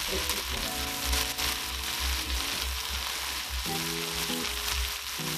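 Chicken pieces, onion and bell pepper sizzling in oil in a skillet, a steady frying hiss. Background music with held notes plays over it for most of the time.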